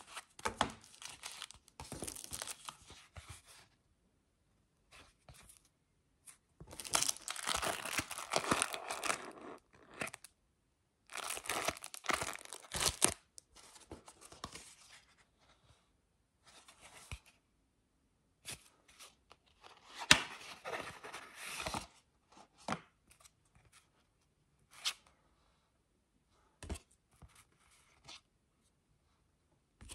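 Paper and card rustling and sliding in several bursts of a second or two as CD packaging inserts and printed photo cards are handled and pulled from a paper envelope, with a few small taps and clicks in between.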